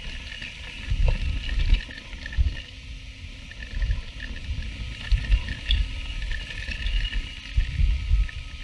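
Mountain bike rolling fast down a dry dirt trail: tyre noise on dirt and leaf litter with wind buffeting the mic in uneven low gusts and a few light knocks from the bike.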